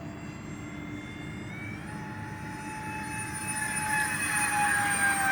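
Electric ducted fans of a radio-controlled Airbus A330 model airliner whining in flight, growing louder from about three seconds in and slowly falling in pitch as the plane flies past.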